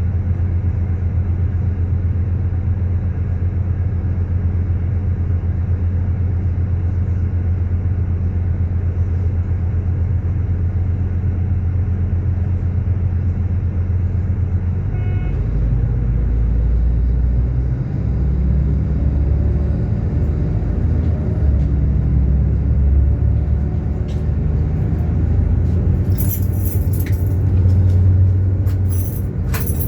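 Diesel locomotive engine running with a steady low drone, its note dropping and becoming rougher about halfway through as the engine is loaded. Several sharp high-pitched squeals near the end, like wheels or brakes squealing on the rails.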